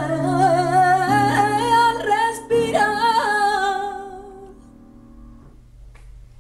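A woman sings a wordless, wavering flamenco-style line over sustained chords on a digital piano. The chords change twice, the voice fades out about four seconds in, and the last chord dies away shortly after.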